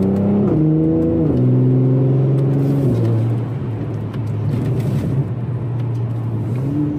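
Mercedes-AMG C43's M276 twin-turbo 3.0-litre V6, heard from inside the cabin, upshifting under light throttle: the engine note drops in pitch three times in quick succession as the Speedshift TCT transmission changes gear. It then settles into a low, steady drone while cruising.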